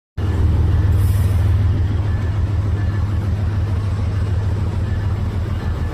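Locomotive engine running with a steady, deep low rumble.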